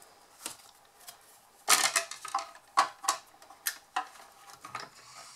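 Clear acrylic cutting plates and a metal die clacking against each other and the platform of a Mini Big Shot die-cutting machine as they are set in place, in a string of short, sharp knocks starting about a second and a half in.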